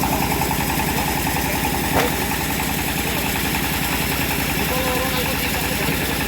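Homemade bandsaw sawmill running steadily, with one sharp click about two seconds in.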